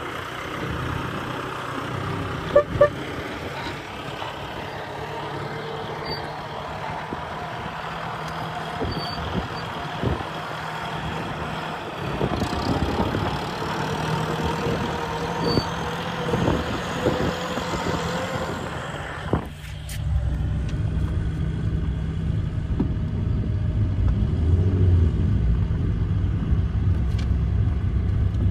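Tractor engine running as the tractor drives off, with two sharp clicks about two and a half seconds in. About twenty seconds in the sound changes abruptly to the steady low rumble of a car driving slowly on a dirt track, heard from inside the cabin.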